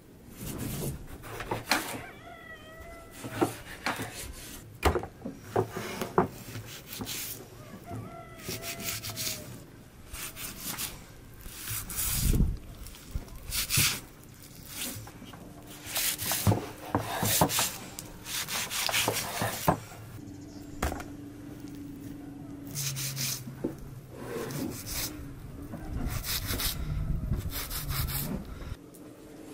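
A large knife slicing and trimming raw lamb on a wooden cutting board: repeated short scraping strokes and knocks of the blade on the board. A few short animal calls come about two seconds in and again about eight seconds in.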